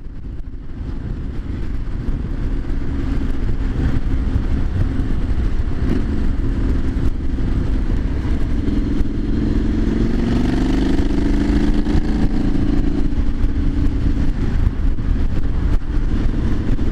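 Triumph Street Scrambler 900's parallel-twin engine running while riding, with wind rumble on the microphone. The engine note climbs in pitch about halfway through as the bike accelerates, then holds steady.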